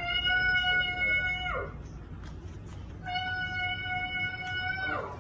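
Two long meows held at one steady high pitch, each sliding down at the end, the second following about a second and a half after the first.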